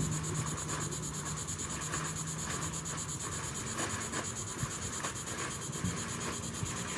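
Inflatable kite's canopy fabric being folded by hand: a soft, continuous rustling and rubbing of the material with faint scattered crinkles.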